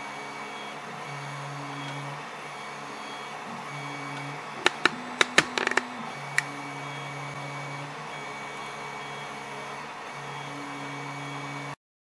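Stepper motors of a StoneFlower clay 3D printer running as the print head moves back and forth laying clay infill, a low hum that switches on and off and changes pitch with each stroke every second or two. About halfway through comes a quick run of sharp clicks, the loudest sounds, and near the end the sound cuts off suddenly.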